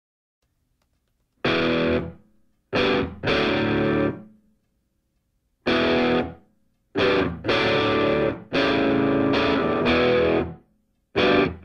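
Background music: distorted electric guitar chords played as separate stabs and held chords with short breaks between them, starting about a second and a half in.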